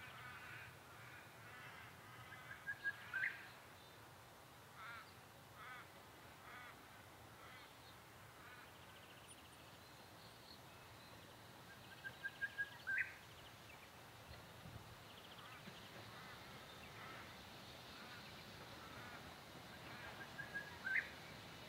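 Faint wild birdsong: one bird repeats a phrase of a few quick even notes ending in a sharp upward whip three times, about nine seconds apart, among scattered fainter chirps from other birds.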